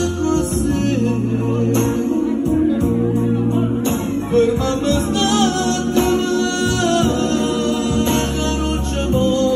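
A man singing an Italian song live into a handheld microphone, his voice gliding and wavering on held notes, over backing music with a bass line that changes about once a second.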